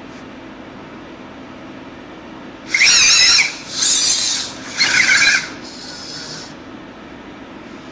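Dynamixel servo motors of a robotic hand whining as the fingers move, in four short bursts under a second each, the pitch wavering within each burst; the last is fainter.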